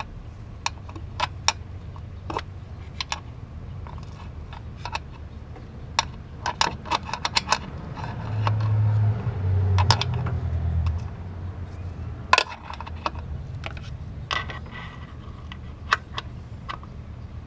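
Screwdriver prying at a stuck water pump on a 2009 Honda Odyssey V6: irregular metallic clicks, knocks and scrapes as the blade levers against the pump and engine block to break the pump loose.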